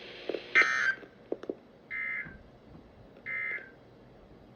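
Emergency Alert System end-of-message data tones: three short, buzzy bursts about one and a half seconds apart, the first the loudest. They signal the end of the warning broadcast.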